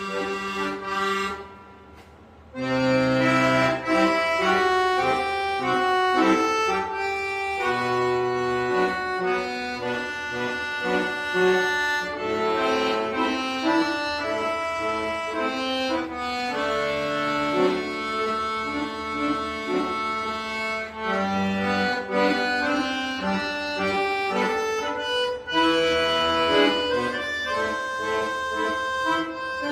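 Accordion playing a melody over held chords, the notes changing every fraction of a second; the playing breaks off briefly about two seconds in, then resumes.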